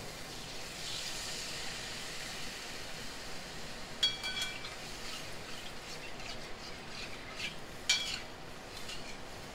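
Milk poured into a hot stainless steel kadai of spiced, oil-fried potatoes sizzles softly, and a metal slotted spatula stirs it, clinking against the pan about four seconds in and again near the end.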